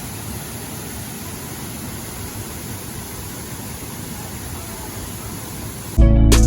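Steady rush of flowing stream water, an even hiss without a break. Acoustic guitar music cuts in near the end.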